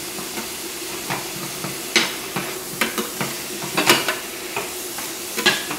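Shallots and garlic sizzling in oil in a stainless steel pan, stirred with a metal spoon that knocks and scrapes against the pan several times, most sharply near the middle and end.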